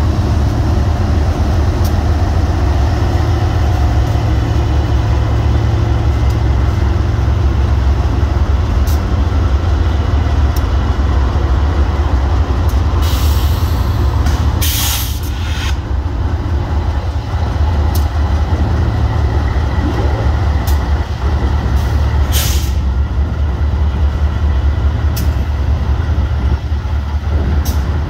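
BNSF diesel locomotives rolling past at close range: a heavy, steady engine rumble, with loud hisses of air about halfway through and again a few seconds later, and scattered sharp clicks.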